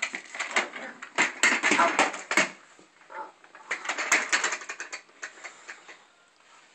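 A hollow plastic toy knocking and clattering in quick, irregular knocks as a toddler handles it, with a second run of clatters as it tumbles to the floor about four seconds in.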